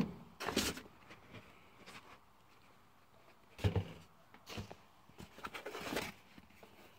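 Scattered rustles and soft knocks of packaging being handled: plastic-wrapped parts and a foam insert moved in and lifted out of a cardboard box.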